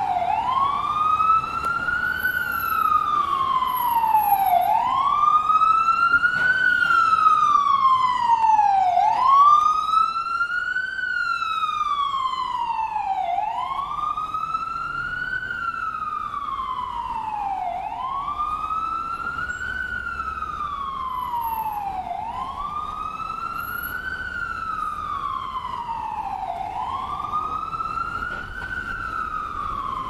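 Ambulance siren in wail mode: one tone sweeping slowly up and down, each rise and fall taking about four and a half seconds, repeating steadily and growing a little fainter in the second half.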